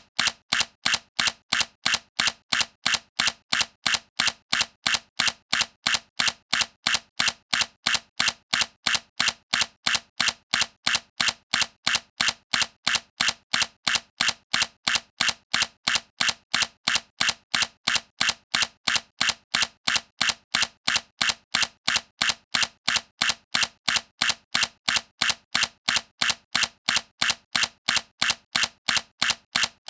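Sony A7C mirrorless camera shutter firing over and over at an even, rapid pace, each release a short sharp click.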